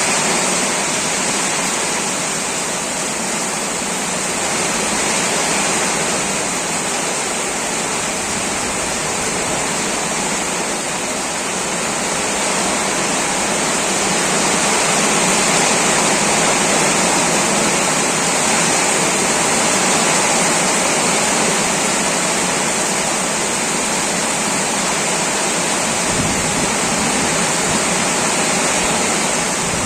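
Heavy rain falling steadily, a dense and even rushing hiss with no breaks.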